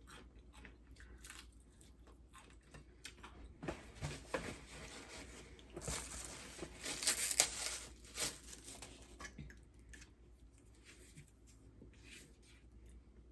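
A person eating close to the microphone: chewing with small wet smacks and clicks, and a louder stretch of crunching and tearing of food about six to eight seconds in.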